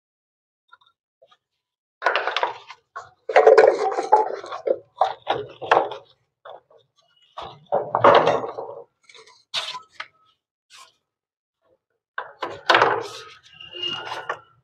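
Plastic water pipes and fittings being handled and fitted: irregular knocks, thunks and scrapes, starting about two seconds in.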